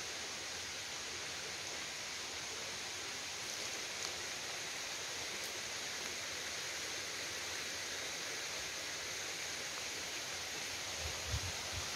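Shallow forest stream flowing over stones with a steady rushing sound. A few soft low thumps come near the end.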